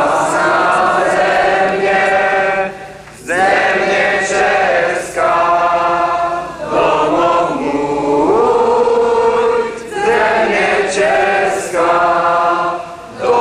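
Large crowd singing together in unison, holding sung phrases of a second or two with short breaks between them.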